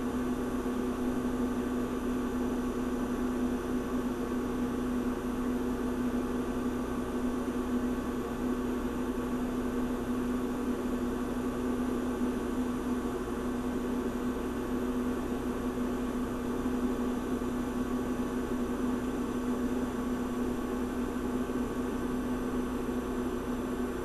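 Refrigerator compressor running with a steady hum: one strong low tone with fainter higher tones over a light hiss, unchanging throughout.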